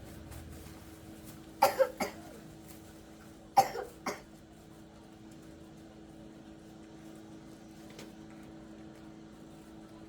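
A young girl coughing in two short fits about two seconds apart, each of two or three coughs: the cough of a sick child.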